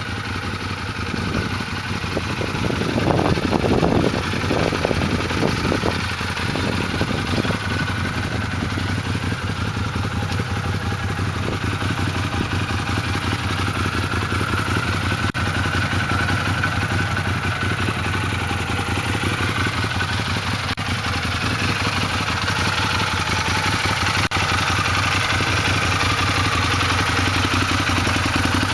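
Arctic Cat Wildcat 1000X side-by-side's V-twin engine idling steadily, briefly louder about three seconds in.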